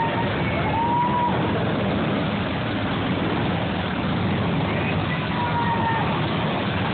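Police motorcycle escort riding slowly past, engines running steadily, with faint siren wails about a second in and again near the end.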